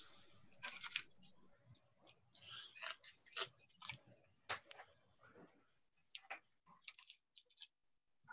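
Near silence broken by faint, irregular clicks and crinkly rustles of small things being handled.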